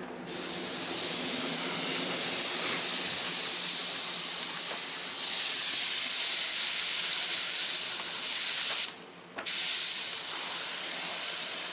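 Paint spray gun hissing as it sprays blue paint, a loud steady hiss that stops for about half a second some nine seconds in, then starts again.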